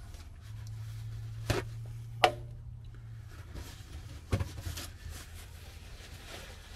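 Three sharp knocks of things being handled on a counter, the second one loudest, over a low hum in the first few seconds. Then the rustle of paper towels as silicone sealant is wiped off hands.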